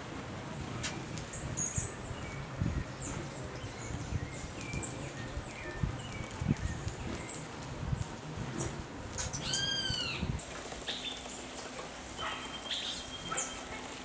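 Small backyard birds chirping with many short, high notes, with one louder arched call about ten seconds in. Dull low thumps and rumble sound through the first ten seconds.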